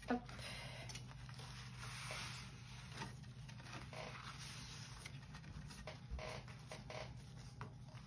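A cloth rubbing and wiping over black card stock to take off excess glue, with light rustling as the card is handled and pressed flat by hand. There is a short sharp tap right at the start and a few soft clicks.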